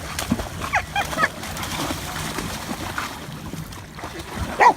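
A Rottweiler giving short barks at the waves: two quick ones about a second in and a louder one near the end, over the wash of surf.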